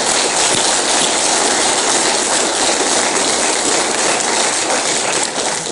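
Audience applauding, fading near the end.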